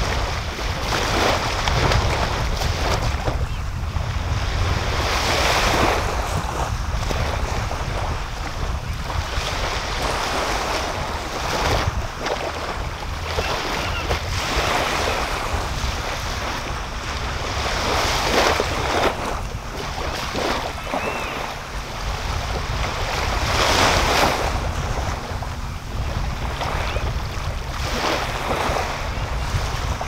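Small sea waves washing up on a sandy beach, swelling and falling back every few seconds, over a steady low rumble of wind on the microphone.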